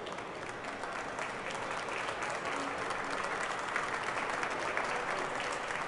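A crowd applauding, many hands clapping at once, growing steadily louder.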